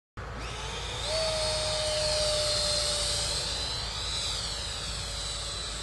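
Electric ducted fan of an RC model jet (a 64mm seven-blade fan on a Cyclone 450 4500kv brushless motor) whining at high speed in flight. The pitch climbs in the first second and then holds steady, with a swooping sweep about four seconds in as the jet passes.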